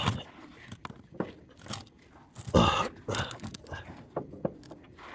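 Irregular clicks, knocks and rubbing of hand tools and metal being handled at a mower deck, with two louder scrapes, one at the start and one about two and a half seconds in.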